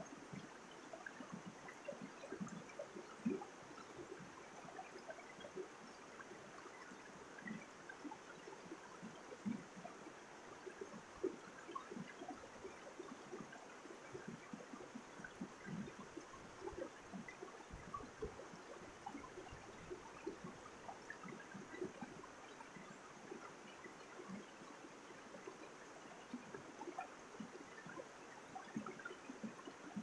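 Mountain stream flowing over rocks in small cascades: a steady wash of water with constant small gurgles and splashes.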